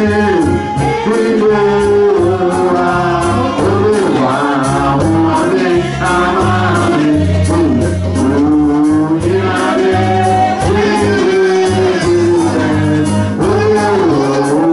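Live gospel praise music with a lead voice singing over keyboard, bass and drums keeping a steady beat.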